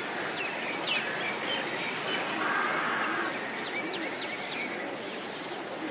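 Outdoor ambience of birds calling over a steady background hiss. There are short, sharp rising chirps, a buzzy call that repeats every couple of seconds, and faint low cooing about halfway through.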